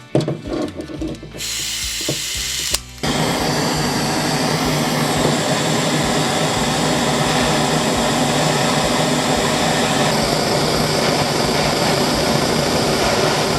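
A power tool running: a short rough start and a hissing stretch, a brief pause about three seconds in, then a steady run.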